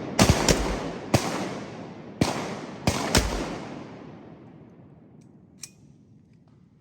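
A volley of shotgun fire from several hunters shooting at ducks: about six shots in the first three seconds, irregularly spaced. The echo dies away slowly over the next few seconds.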